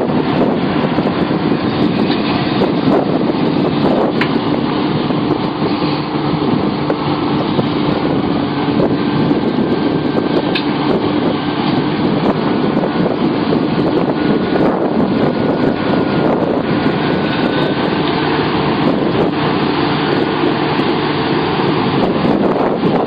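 Sumitomo SH700LHD-5 excavator's diesel engine running steadily, with a few faint clicks over it.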